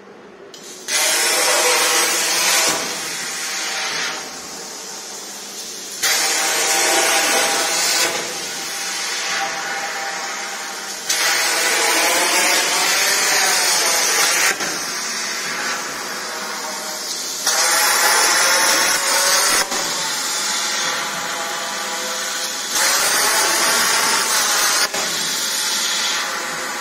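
A 100-amp CNC plasma cutter's torch cutting holes in a steel tube: a loud, dense hiss that starts about a second in. It switches between louder and quieter stretches every few seconds as the torch works from hole to hole.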